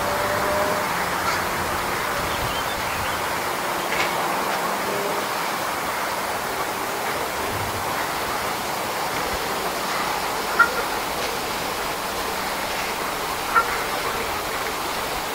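Steady rushing outdoor background noise, with two short high chirps, one about ten and a half seconds in and one near the end.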